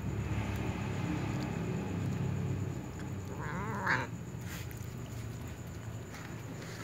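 A kitten meows once about halfway through, a short wavering call that rises at its end, over a low steady rumble.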